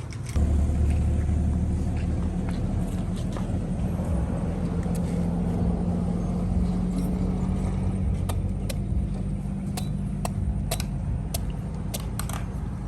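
A steady low motor hum that starts about half a second in, with scattered light clicks.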